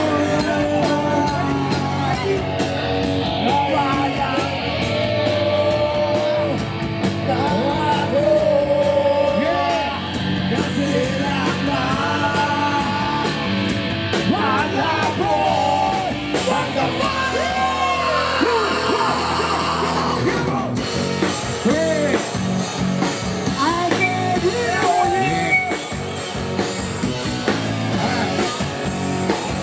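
Live band playing with a male singer singing into a microphone over the PA.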